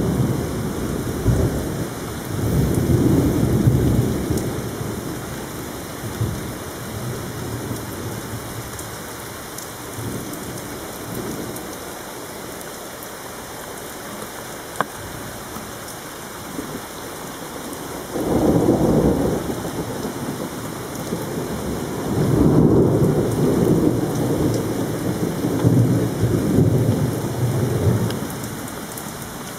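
Thunderstorm: rain falling steadily, with rolling thunder rumbling through it: a rumble near the start, another breaking in suddenly about eighteen seconds in, and a longer one near the end.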